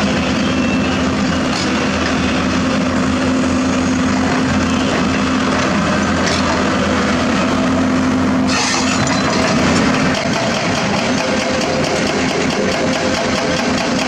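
Diesel engine of a Doosan DX300LCA crawler excavator running steadily as it works, a strong held hum. About eight and a half seconds in a hiss joins it, and near ten seconds the hum changes tone.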